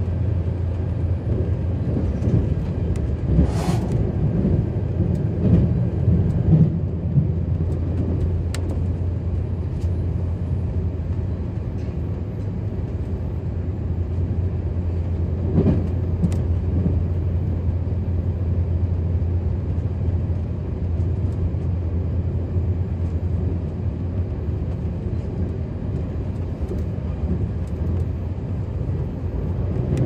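Running noise heard inside the passenger cabin of a JR Central 383 series limited express electric train: a steady low rumble, with a couple of sharper knocks a few seconds in and about halfway through.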